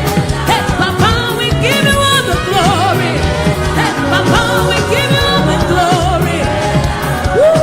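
Live gospel worship music: a band with a steady bass line under several singing voices whose lines slide up and down in pitch. Near the end one voice rises and then falls in a long glide.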